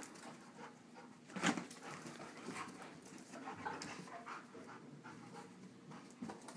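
A dog panting during rough play with a cat, with a short thump about a second and a half in.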